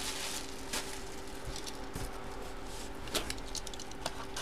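Faint handling of a sealed cardboard card box, with two light taps, one under a second in and one about three seconds in, over a steady faint hum.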